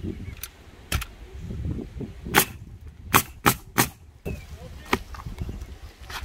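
Pneumatic coil roofing nailer firing nails through asphalt shingles: sharp cracks, one about a second in, then a quick run of four shots between about two and four seconds in.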